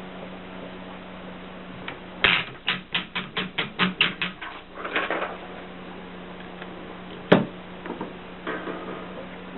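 Mercedes 6 typewriter typing: a quick run of about ten keystrokes at four to five a second, then a short rasping sound, a single loud clack about seven seconds in, and a few softer mechanical clicks near the end.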